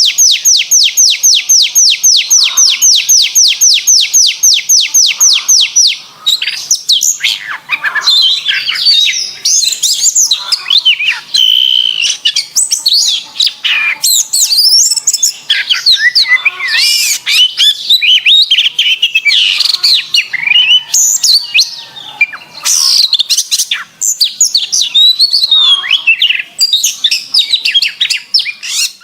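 Canary singing: a fast trill of identical high notes, about seven a second, for the first six seconds, then a varied warbling song of quick rising and falling chirps and glides.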